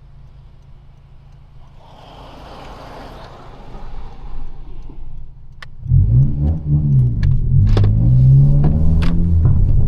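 2022 Honda Civic Si's turbocharged 1.5-litre four-cylinder: a low steady hum at light load, then about six seconds in the engine goes under hard throttle and gets much louder, its revs rising and falling through gear changes, with a few sharp clicks.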